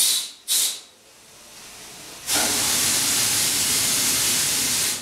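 Hissing blasts from a blowing nozzle held into a ship's boiler tubes to clear soot: two short blasts, then one steady blast of about two and a half seconds that cuts off sharply.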